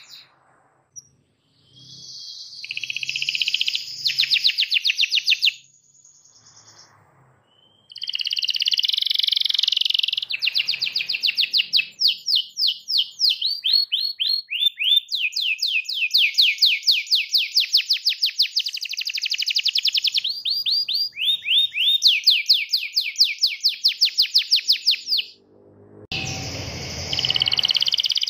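Domestic canary singing a long rolling song of fast repeated trilled notes and quick pitch sweeps, first a short phrase, then after a pause an unbroken run of about a quarter minute. Near the end a low rumbling noise comes in under renewed song.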